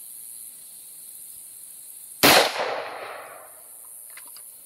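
A single AR-15 rifle shot about two seconds in, its report echoing away over about a second.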